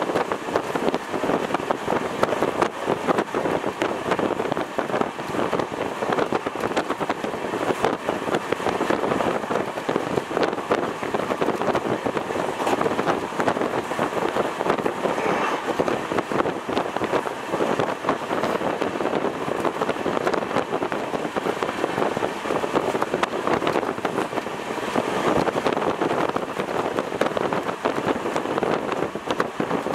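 Indian Railways passenger train running at speed, heard from inside the coach: a steady rumble with the fine clatter of wheels on the rails.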